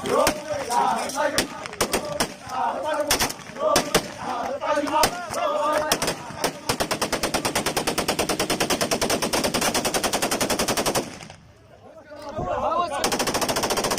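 Men chanting a tribal hosa, broken by single gunshots. About halfway through comes a long burst of rapid automatic rifle fire lasting some four seconds. After a short lull with a shout, another burst starts near the end.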